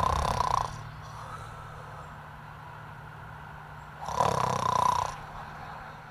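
A person snoring: two loud snores about four seconds apart, over a low steady hum.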